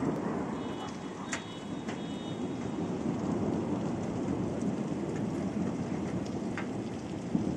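Heavy thunderstorm rain falling steadily, with a few sharp drop hits standing out.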